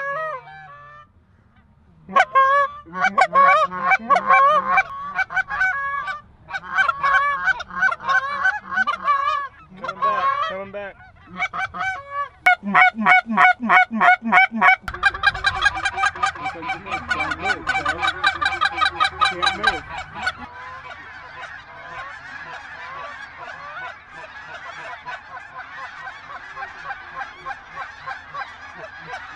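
Geese honking, mixed with hunters' hand-blown goose calls, in quick broken runs of honks and clucks. From about 12 s the calling turns into fast, regular runs. From about 20 s in it becomes a large flock calling all at once, a dense, steady chorus of honks.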